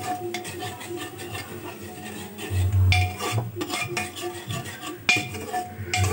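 A spoon scraping and clinking against the inside of a metal pressure cooker while masala is stirred and roasted, the pot ringing briefly after the knocks. One heavier knock comes a little under three seconds in.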